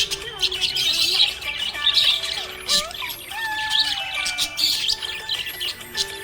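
Several budgerigars chirping and warbling continuously, with rapid overlapping chirps and a few sliding whistled notes.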